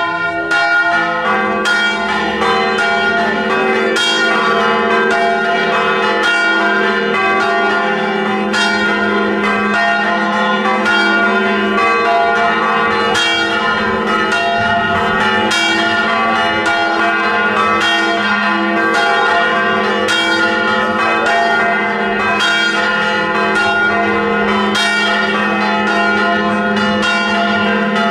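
Several church bells pealing together, with many overlapping strikes ringing on without a break. This is a festive peal for the procession leaving the church.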